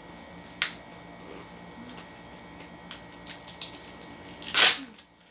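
Plastic-wrapped parcel being handled and opened by hand: a sharp click just over half a second in, a few light clicks around three seconds in, then a short, loud rustling tear of the plastic about four and a half seconds in.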